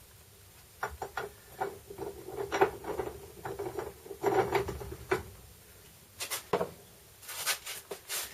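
A run of irregular clicks and knocks, with a faint steady hum under them for the first few seconds.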